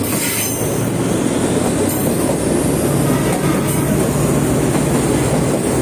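Sagano Romantic Train carriage running along the track, a steady rumble of wheels and carriage heard from on board.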